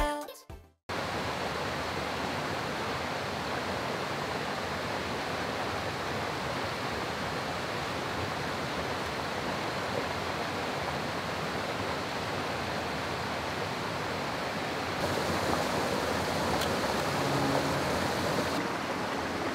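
Mountain stream rushing steadily over rocks and small cascades. It gets a little louder and brighter about three quarters of the way in.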